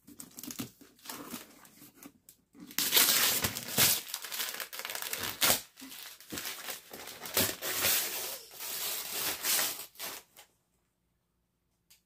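Wrapping paper being ripped off a cardboard gift box: bursts of tearing and crinkling paper, loudest in the middle, stopping a couple of seconds before the end.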